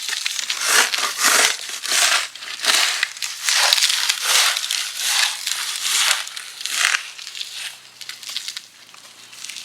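Snow crunching in a steady rhythm, about a dozen crunches at roughly one and a half a second, dying away about seven seconds in.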